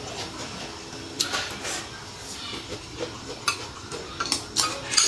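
A metal spoon clinking and scraping against a glass bowl in a few sharp knocks, with chewing sounds between them.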